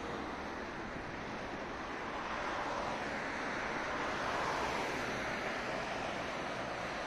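Steady rushing noise of city street traffic, swelling a little in the middle as vehicles pass.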